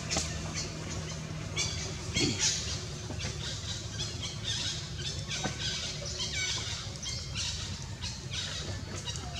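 Macaques squealing and squawking: a rapid run of short, high-pitched calls over a steady low hum.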